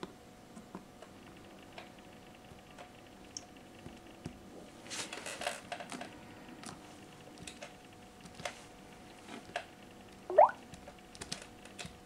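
Fingers tapping a smartphone touchscreen and pressing the physical home button of a Samsung Galaxy Note 2: scattered light clicks and taps, busier about five seconds in. A short rising chirp sounds about ten seconds in.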